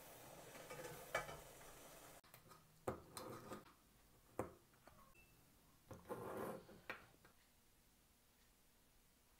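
Faint steady hiss that cuts off abruptly about two seconds in, then a few scattered light clinks and knocks of dishes or utensils being handled, with a short rustle-like scrape in the middle.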